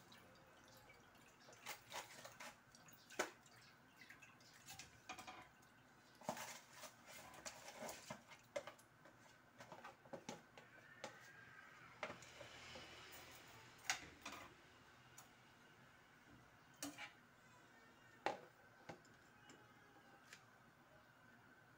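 Faint drips, splashes and scattered sharp clicks as thick coconut milk is poured and scraped from a plastic container into a stainless steel frying pan. The clicks and drips thin out near the end.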